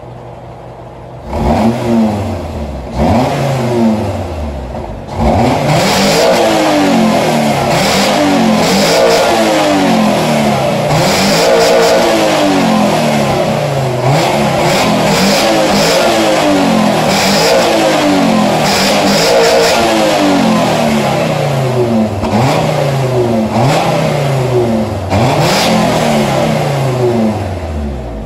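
Acura Vigor's G25A inline-five engine revved through a small generic muffler, heard from behind the tailpipe. After a brief idle it gives two separate revs, then from about five seconds in it is blipped over and over in quick back-to-back revs, the pitch rising and falling roughly once a second, before dropping back toward idle near the end.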